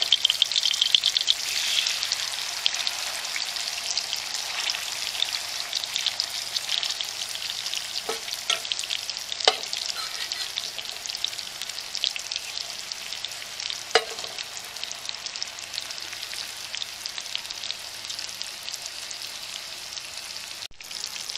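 Fish frying in hot coconut oil in a pan: a dense crackling sizzle, strongest in the first couple of seconds after the fish have gone in, then settling to a steady sizzle. A few sharp taps stand out about 8, 9 and 14 seconds in.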